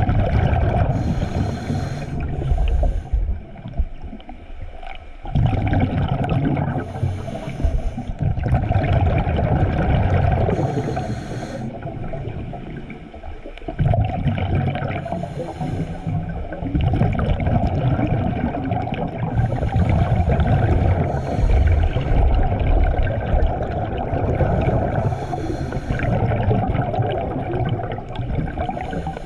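Scuba diver breathing through a regulator, heard underwater: a low, bubbling rush of exhaled air, with short higher hisses every few seconds and brief lulls about four seconds in and again about thirteen seconds in.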